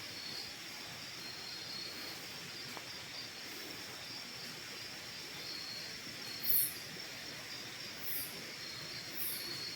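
Outdoor insect chorus: a steady high-pitched trilling that pulses on and off, with three short, very high chirps in the second half.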